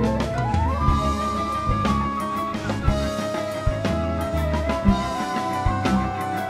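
Instrumental rock music with drums and bass under a sustained lead line that slides up in pitch at the start and then holds long notes.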